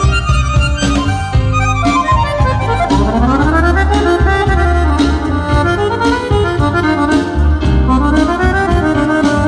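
A live band's instrumental break: a Roland digital accordion plays a fast, ornamented lead line over drums and a steady bass, with a sweeping upward run about three seconds in.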